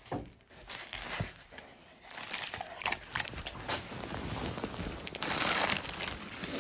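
Irregular crinkling and rustling, like something being crumpled, with many small crackles. It is faint at first and grows louder after about two seconds.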